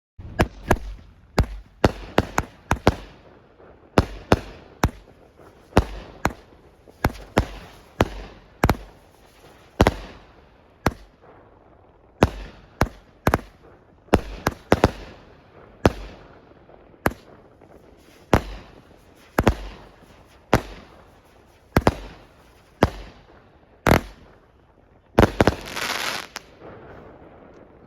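A 25-shot 200-gram firework cake (Black Jack BF1407) firing its shots one after another, about one a second with uneven gaps, each a sharp bang with a short trailing tail. A longer, louder noisy burst comes near the end.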